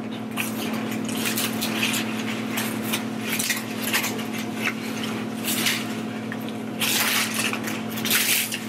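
Paper sandwich wrappers and a plastic bag crinkling and rustling as takeout food is unwrapped, in irregular spells, over a steady low hum.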